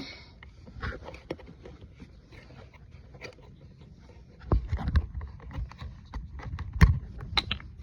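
Scattered clicks and light knocks of objects being handled over a low rumble, with heavier thumps about halfway through and again near the end.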